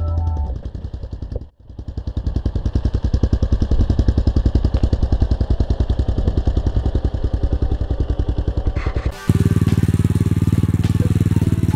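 SSR 125 pit bike's small single-cylinder four-stroke engine running steadily at idle, a rapid even pulsing of the exhaust. About nine seconds in the sound changes to a steadier, deeper hum of the same engine.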